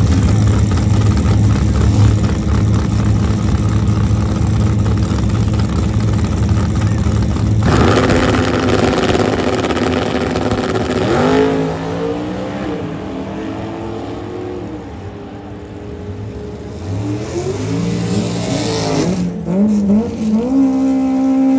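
Chevrolet Cobalt drag car's engine running loud and steady at the starting line, then launching hard about eight seconds in. Its pitch climbs and drops through several gear changes as it pulls away down the track and fades.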